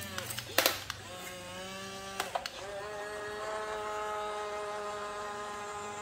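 Small electric motors of a toy remote-control excavator whining as they drive it, the pitch rising as they spin up, with a few sharp clicks in the first two seconds. The whine then holds at a steady pitch from about two and a half seconds in.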